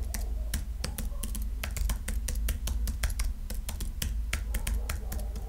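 Typing on a computer keyboard: a quick, irregular run of key clicks, several a second, over a low steady hum.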